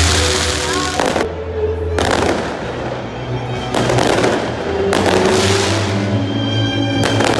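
Aerial fireworks exploding in a run of separate bangs about a second or so apart, each with a trailing rumble, over music.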